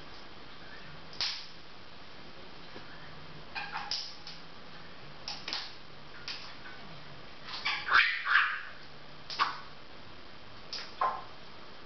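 Small parrot giving short, sharp squawks and chirps at irregular intervals while playing, with a louder cluster of several calls about eight seconds in.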